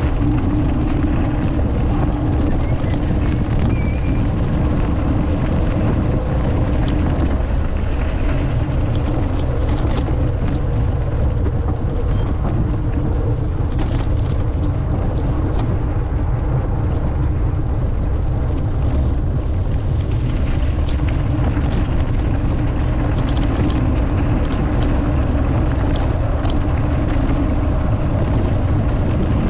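Steady wind noise on the microphone with a rolling rumble from a mountain bike being ridden, going on without a break.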